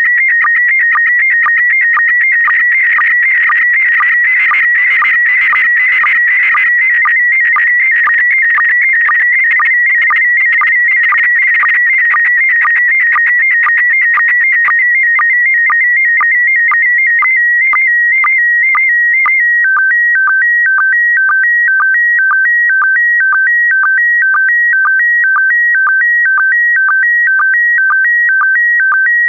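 Slow-scan television (SSTV) image signal in PD120 mode: loud, rapidly warbling tones sweeping line by line. About two-thirds of the way through, it settles into a regular alternation between two tones, about twice a second.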